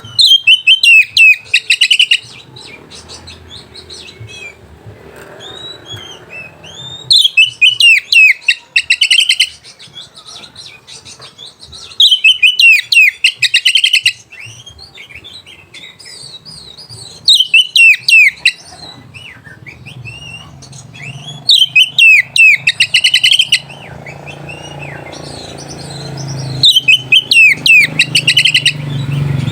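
Oriental magpie-robin singing loud two-second bursts of quick sweeping notes, six of them about five seconds apart, with softer scattered calls in between. A low hum builds up near the end.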